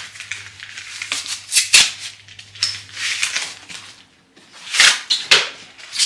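Packaging rustling and crinkling in short bursts, about half a dozen of them, as a bag strap is pulled free of its wrapping.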